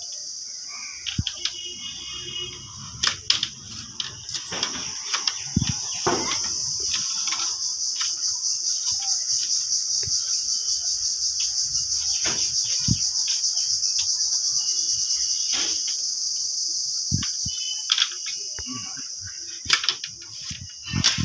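Irregular sharp knocks and cracks of a hand blade chopping and splitting thin bamboo strips against a wooden plank, over a steady high-pitched, fast-pulsing insect drone.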